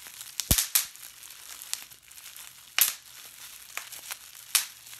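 Bubble wrap crinkling as it is squeezed and twisted by hand, with several sharp pops of bubbles bursting, the loudest about half a second in, near three seconds and near four and a half seconds.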